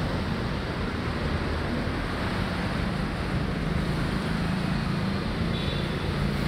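Steady low rumble of road traffic, with no distinct events standing out.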